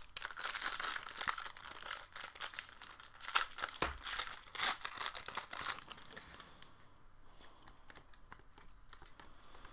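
Foil wrapper of a Panini Prizm trading-card pack being torn open and crinkled, with crackling through the first six seconds. After that come fainter, scattered ticks as the cards are handled.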